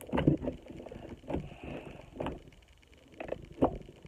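Slime being squeezed and poked by hand: a handful of short, wet squelches and pops, about five in four seconds.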